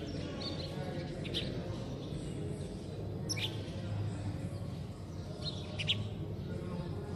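Birds chirping: about four short, high chirps a second or two apart, each falling in pitch, over a steady low background rumble.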